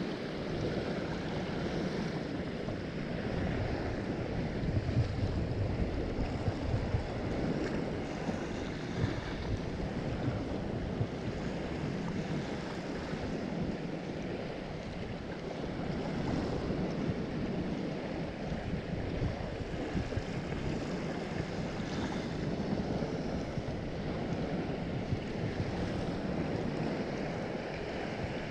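Small waves washing up onto a sandy shore, a steady rushing noise with wind buffeting the microphone.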